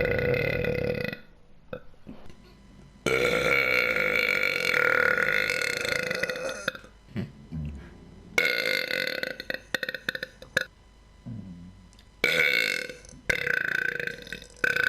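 A person burping over and over in long, drawn-out belches. One ends about a second in, the longest starts about three seconds in and lasts nearly four seconds, another comes about eight seconds in, and two shorter ones follow near the end, with short pauses between them.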